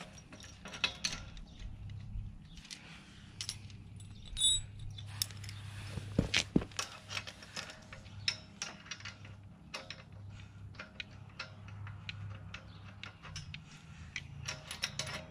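Small metal clicks and clinks as nuts are handled and threaded by hand onto the bolts of a cultipacker's wheel-shaft bearing flange, irregular throughout with a louder cluster about six seconds in. A steady low hum runs underneath.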